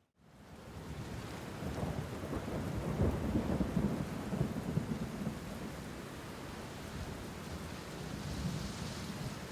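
Thunderstorm: steady rain with a low rolling rumble of thunder that swells about two seconds in and fades back into the rain by the middle.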